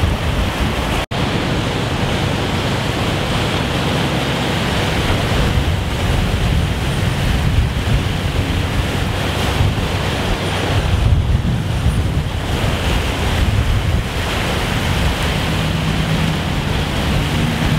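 Steady rush and wash of floodwater across a street as vehicles wade through it and push waves, with wind on the microphone. The sound cuts out for an instant about a second in.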